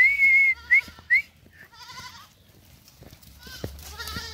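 A loud, sharp whistle held for about half a second, then two short rising whistles, followed by goats bleating, a wavering call about two seconds in and more near the end.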